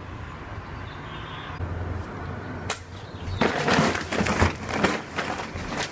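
A sharp click, then about a second and a half of crinkling and bumping as a large woven plastic tote bag is grabbed and hoisted up.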